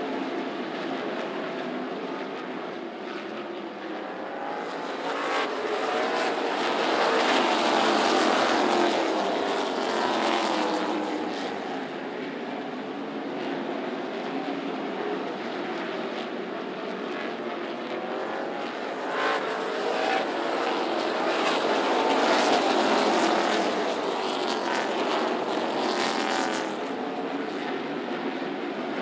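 A pack of NASCAR K&N Pro Series stock cars racing past, their V8 engines running together as many overlapping pitches that rise and fall as the cars go by. The sound swells twice as the field passes close and eases between.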